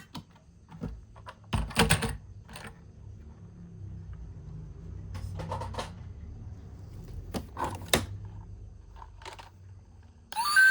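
Scattered clicks and taps of hard plastic toy vehicles being handled and set down, some in quick pairs, over a faint low hum.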